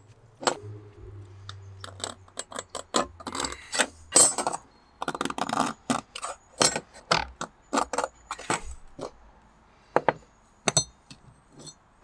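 Small metal angle brackets and a steel ruler handled on a plywood bench: a string of sharp clicks and knocks as metal is picked up and set down on the wood, with a few short scraping strokes while the brackets are measured and marked. A brief metallic ring near the end.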